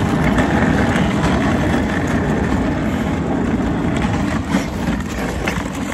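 Steady low rumble of a vehicle in motion: engine and road noise.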